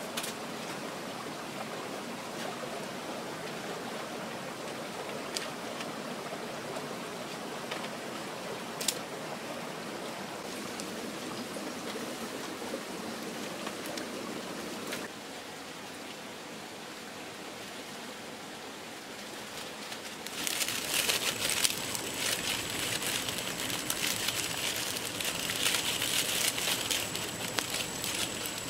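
A forest stream runs steadily, with a few sharp snaps of dry sticks. About two-thirds of the way through, a fire of dry sticks catches and crackles densely, louder than the water.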